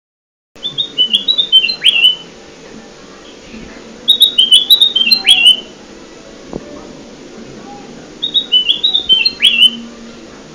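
Kutilang emas bulbul song played as a lure call: three short phrases of quick, stepped whistled notes, each ending in a sharp downward slur, repeating about every four seconds over a faint steady hum.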